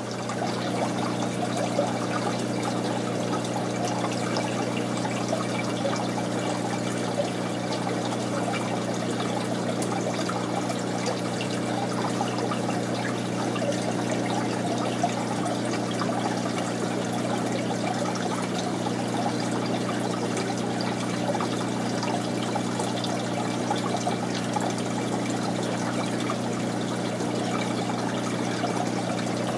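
Aquarium water trickling and splashing steadily, over a steady low hum.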